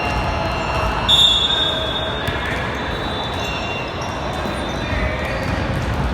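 Basketball game in play: a ball bouncing on the court, sneakers squeaking, and voices calling out. About a second in comes a loud, sharp high tone lasting about half a second.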